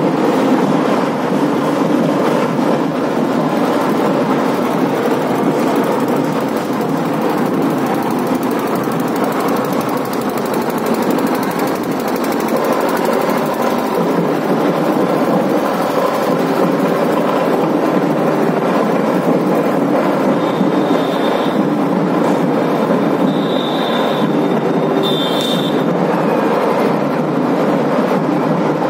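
Steady, loud din of a dense crowd on a busy street, with a few short high whistle-like tones in the last third.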